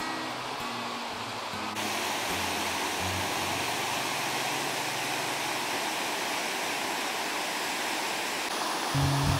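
Lower Sunwapta Falls, the Sunwapta River pouring over a rock ledge: a steady rush of water that gets louder about two seconds in. Soft background music plays at the start, and louder music with a deep bass comes in near the end.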